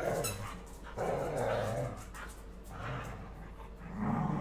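Two small dogs playing together, barking and growling in about four short bursts.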